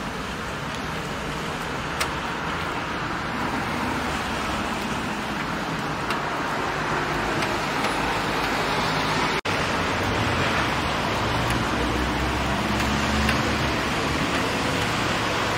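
Outdoor street ambience: steady hiss and rumble of road traffic passing, cutting out for an instant a little over nine seconds in, with the low rumble heavier afterwards.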